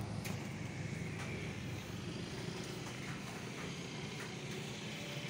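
Distant road traffic: a steady low engine hum with a few faint clicks.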